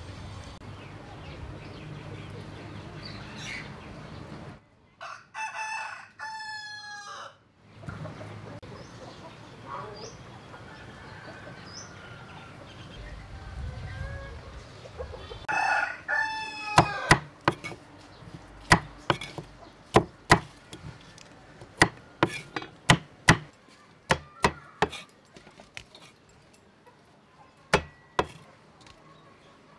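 A rooster crows twice, a few seconds in and again about halfway through. Then a knife chops baby corn on a wooden chopping board, making sharp, irregular knocks about one or two a second through the second half.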